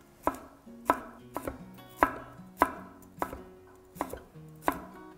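Chef's knife slicing a red bell pepper finely on a wooden cutting board: about nine slow, even knife strokes, each a sharp knock of the blade on the wood, a little under two a second.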